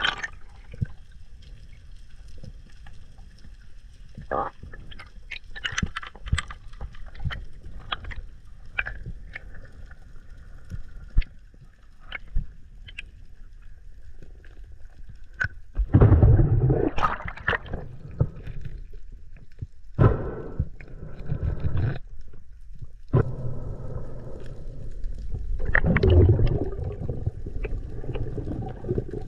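Underwater sound picked up by a GoPro in its waterproof housing: scattered crackling clicks, then from about halfway on three louder rushing bursts of water noise.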